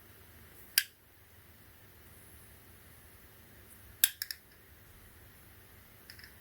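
Sharp, hard clicks from a Zippo lighter and its packaging being handled: a single click about a second in, then a quick run of three or four clicks near the four-second mark, and faint ticks near the end.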